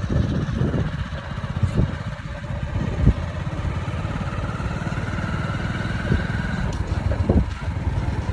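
A motor vehicle's engine running steadily at low speed, a rapid low pulse throughout, with a few short knocks over it.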